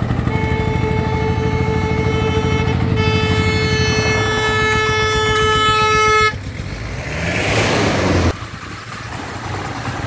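Single-cylinder diesel engine of a three-wheeled công nông farm truck loaded with crushed stone, thudding steadily. A vehicle horn sounds on one steady pitch for about six seconds over it, then stops abruptly. A brief rising rush of noise follows and cuts off suddenly, leaving the quieter engine noise.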